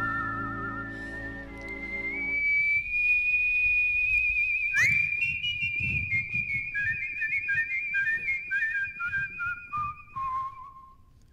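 Two people whistling in duet, unaccompanied after the backing music drops out a couple of seconds in. One holds a long high note with vibrato. The other swoops up to meet it and then whistles a falling run of short notes down to a lower held note near the end.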